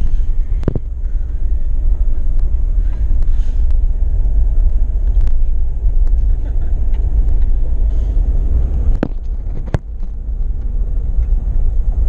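A Jeep driving on a gravel road, heard from inside: a steady low rumble of engine and tyres on gravel, with a few sharp knocks about a second in and twice near the end.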